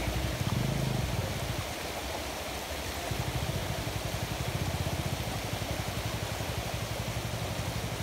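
A vehicle engine running with a fast, even low throb over the steady rush of river water. The engine sound drops away for a moment about two seconds in, then comes back.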